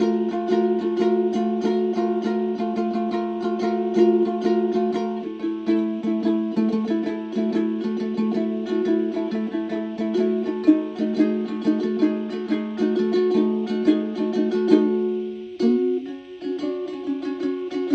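Music on a plucked string instrument: quick, evenly repeated notes over a steady held low note, which drops briefly and shifts to a new note about three-quarters of the way through.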